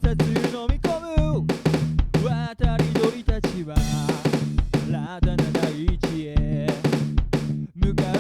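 Rock band music: a drum kit playing a steady beat of bass drum and snare hits, over held bass notes, with a wavering melodic lead line on top.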